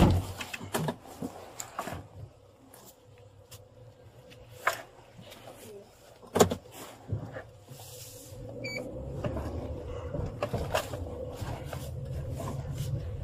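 Inside a police patrol car: a few sharp knocks and clicks as the driver settles in and handles the controls, a short beep a little past halfway, then the car's engine and road rumble building as it pulls away.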